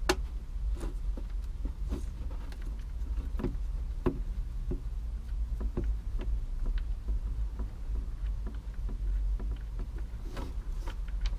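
Scattered light knocks and scrapes of a hand unscrewing a motorcycle's sump drain plug over a plastic drain tray, over a steady low rumble.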